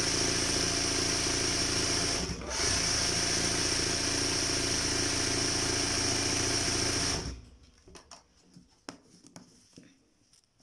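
Sewing machine running steadily at speed as it stitches embroidery, with a brief dip about two seconds in. It cuts off suddenly a little after seven seconds, leaving only faint clicks of fabric being handled.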